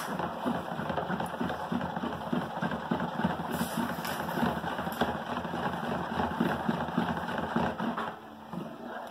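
Homemade liquid laundry soap stirred fast with a long spoon in a plastic bowl, a rapid swishing and sloshing as brine is mixed in to thicken it. It stops about eight seconds in.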